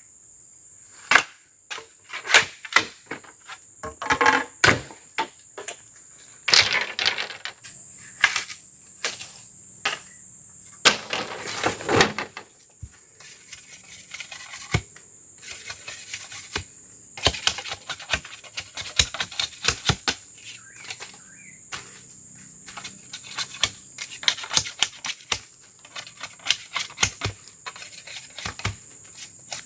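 Sharp wooden knocks and cracks at an uneven pace, sometimes in quick runs, as wood and bark are worked by hand. A steady high insect drone runs behind.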